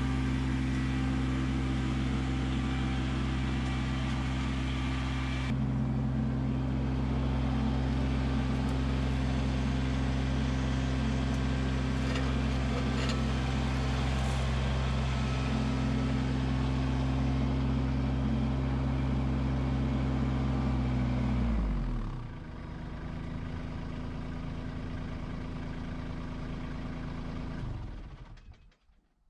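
Kubota LX2610 compact tractor's three-cylinder diesel engine running steadily at working revs. About three-quarters of the way through the revs drop quickly to a lower, quieter idle, and the sound fades out near the end.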